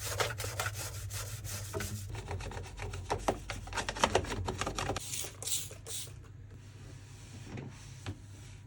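Rubbing and scraping during cleaning: a run of quick small scrapes for about five seconds, then a few longer brushing strokes, then it goes quiet. A steady low hum runs underneath.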